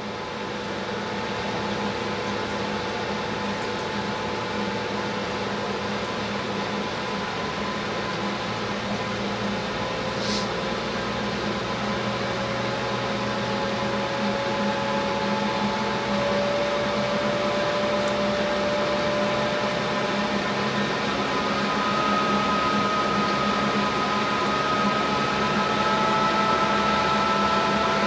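Trane TUY gas furnace's induced-draft blower running steadily at the start of a new ignition attempt. Its whir carries a faint whine that slowly rises in pitch, with a brief faint tick about ten seconds in.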